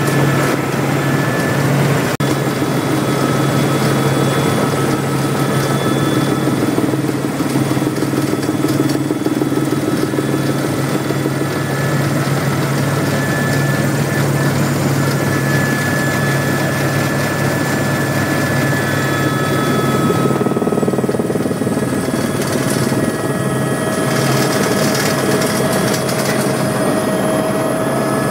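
Helicopter engine and rotors heard from inside the cabin, a loud steady drone with a high whine, as the helicopter descends to land. About twenty seconds in the sound shifts, and a tone rises slightly near the end.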